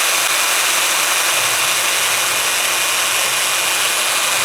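Electric drill fitted with a sanding or buffing disc attachment, running steadily: a loud, even whirring hiss with a thin high whine.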